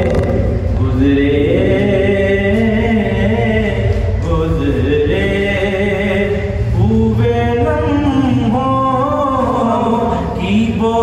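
Male voice singing a naat, an Urdu devotional poem in praise of the Prophet, in long held notes that glide between pitches, over a low steady hum.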